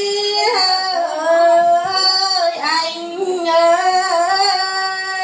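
A singer holding a long wordless vowel in a lượn folk song: a sustained high note that bends and turns through an ornamented run in the middle, then settles on a steady held note again.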